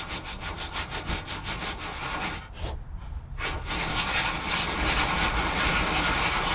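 Ratchet wrench clicking evenly and quickly, about seven clicks a second, as a control arm bolt is backed out. After a brief pause about two and a half seconds in, it gives way to a denser, continuous rasping.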